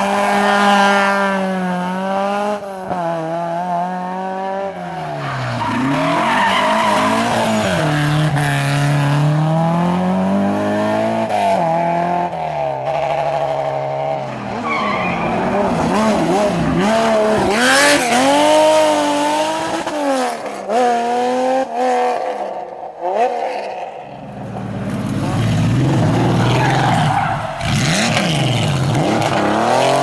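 Historic rally cars, a Fiat 131 Abarth and air-cooled Porsche 911s, driven hard one after another through tight bends. Their engines rev up and fall back through gear changes, and the tyres squeal as the cars slide.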